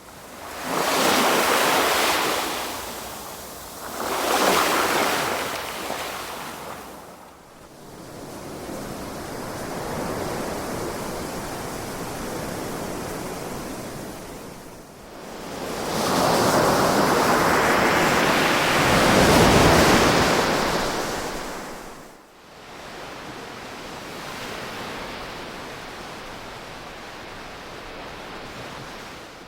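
Ocean waves breaking and washing on a shore, coming in surges that swell and fade: two shorter surges in the first five seconds, a longer, louder one a little past the middle, and a softer, steadier wash between and after them.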